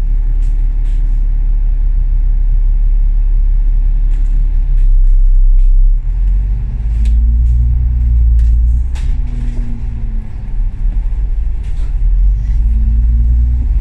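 Alexander Dennis Enviro500 MMC double-decker bus running, heard from inside: a steady low rumble, then about six seconds in the engine note rises and falls as the bus picks up speed, rising again near the end, with light rattles and clicks from the body.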